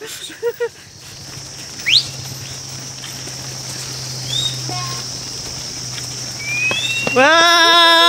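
A flock of sheep on the move: a quiet stretch with a few short high chirps, then a loud, drawn-out sheep bleat with a wavering tone starting about seven seconds in.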